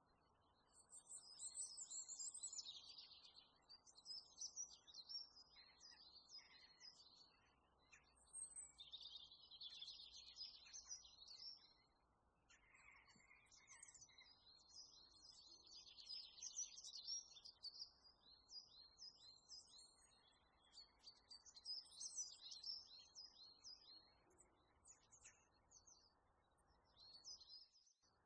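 Small birds singing in bursts of quick, high chirping phrases a few seconds long, over a faint steady hiss that drops out near the end.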